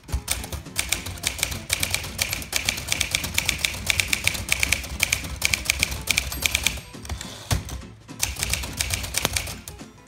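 1955 Smith Corona Silent Super manual portable typewriter being typed on at a quick, steady pace, the keys and type bars making rapid clicks. There is a short break about seven seconds in, then typing resumes.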